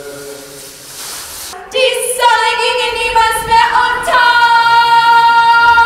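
Faint murmur at first, then, about a second and a half in, several women's voices come in loud, singing sustained high notes a cappella; the pitches step a couple of times before settling into a long held chord.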